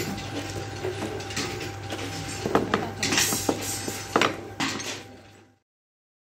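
Glass perfume bottles clinking and knocking as they are handled on a screen-printing table, over a steady low hum, with several sharp clinks in the second half. The sound cuts off abruptly about five and a half seconds in.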